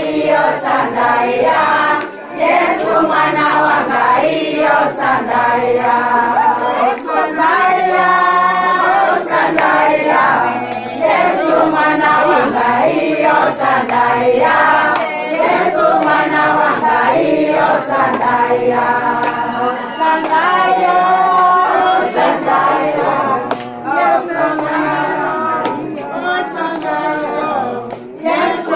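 A group of people singing a song together in chorus, with hand clapping throughout.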